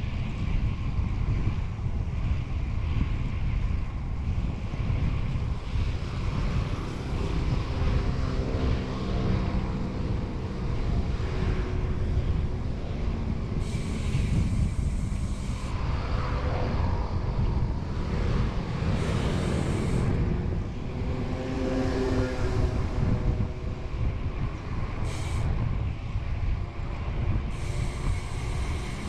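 Wind buffeting the microphone of a camera on a moving bicycle, a steady rumble with traffic sounds mixed in, including a held hum or tone a few times.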